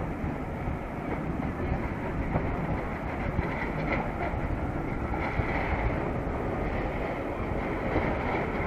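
Steady rumbling wind and rolling noise from a camera on a moving bicycle.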